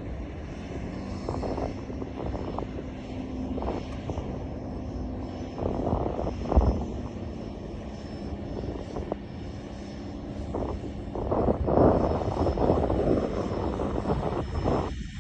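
Concrete mixer truck's engine running steadily, with rough noisy surges that grow louder after about eleven seconds. A single sharp thump comes about six and a half seconds in.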